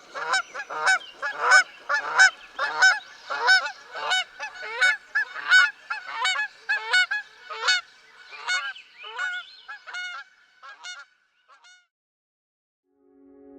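Geese honking in a long series of calls, about two a second, that thin out and grow fainter after about ten seconds.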